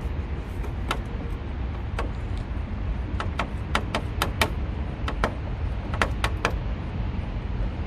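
About a dozen sharp, irregular clicks from a screwdriver working on the Phillips screws that hold a car's corner light housing, over a steady low rumble of highway traffic.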